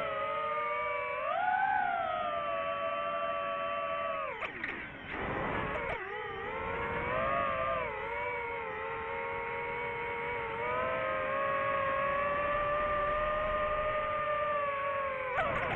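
DJI FPV drone's motors whining, the pitch rising and falling with the throttle. The whine briefly drops and breaks up a little before halfway, then holds steady.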